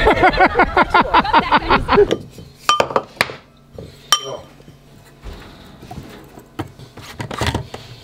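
A person's voice in quick, bending pulses for about the first two seconds. Then light kitchen handling: scattered clinks and knocks as a lid comes off a canister and powder goes into a water bottle, with one short ringing clink in the middle.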